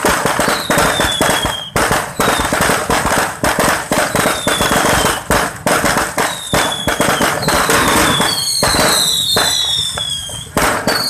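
Fireworks going off: rapid, dense bangs and crackling from bursting shells and sparking fountains, with short whistles falling in pitch that come more often near the end.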